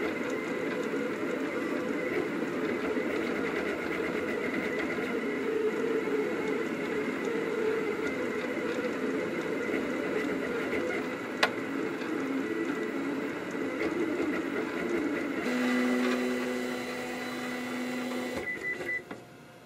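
Rostock delta 3D printer's stepper motors whirring as the print head moves, with a single sharp click about eleven seconds in. Near the end a steady low whine holds for about three seconds as the head travels up off the finished print, then the motors fall quiet.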